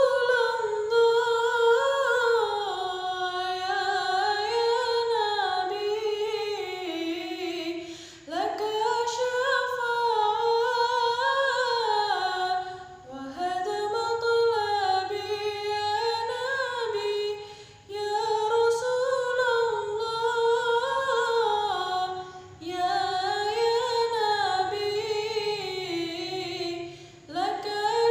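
A woman singing shalawat without accompaniment. Her single voice moves through long, ornamented phrases and breaks off for a breath about every four to five seconds.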